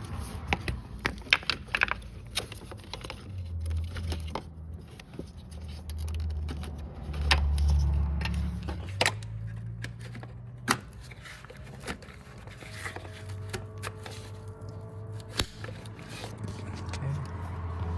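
Scattered clicks, scrapes and rattles of an engine wiring harness and its plastic clips being handled and pressed into place, over a low rumble.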